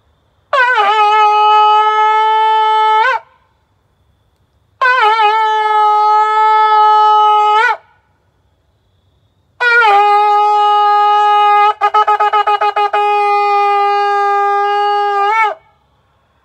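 Shofar blown in three blasts: two of about three seconds and a longer one of about six seconds, each on one steady pitch that swoops down at the start and flicks up at the end. Partway through the long blast the tone breaks into a quick flutter for about a second.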